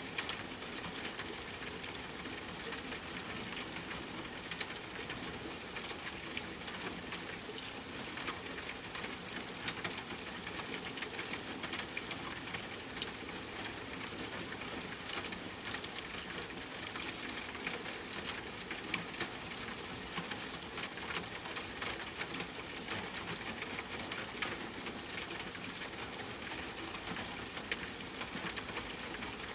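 Steady rain falling on a surface, an even hiss of rainfall dotted with individual drops tapping.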